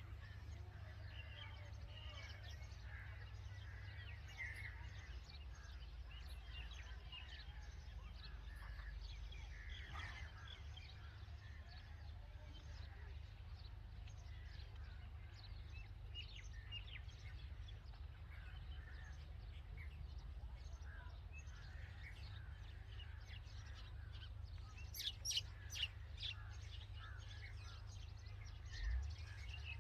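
Red-vented bulbuls at the nest giving short, scattered chirps throughout, over a steady low hum. A few sharp clicks stand out near the end.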